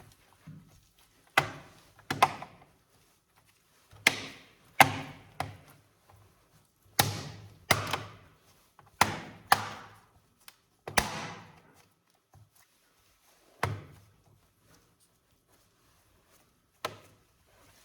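A dozen or so sharp clicks and knocks of hard plastic and metal parts, often in quick pairs with short pauses between, as the laptop and its parts are handled during the battery replacement.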